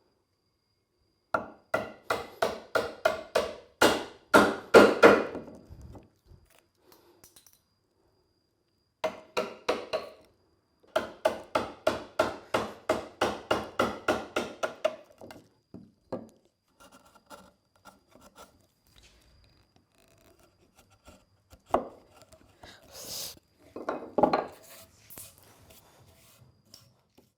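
Rapid runs of hammer blows on wood, about three a second. The first run grows louder and a second run follows after a short pause, then lighter scattered taps and two single heavier knocks near the end.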